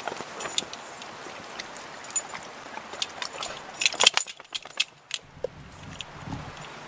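Wind blowing through conifer trees as a steady rush, with scattered sharp clicks and light jingling, most of them in a cluster about four seconds in.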